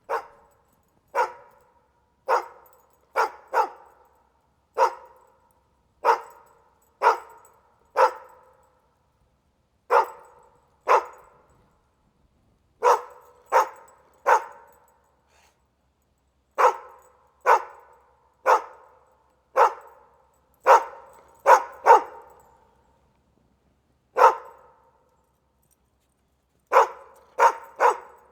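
A dog barking in single short barks, about one a second with irregular pauses of up to a couple of seconds, along with the rattle of a chain.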